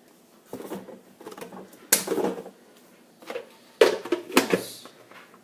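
Plastic clunks and clicks from handling a humidifier's water tank and cap: a few separate knocks, the loudest near the middle and about four seconds in.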